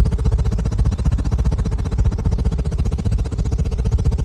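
A steady, rapidly pulsing low rumble with a held hum above it, laid on as the flying magic carpet's sound effect.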